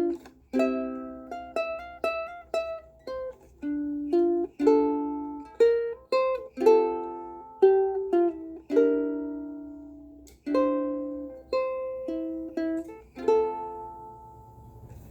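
Donner zebrawood soprano ukulele played as a run of separate chords, each one ringing and decaying before the next; the last chord is left to fade out near the end.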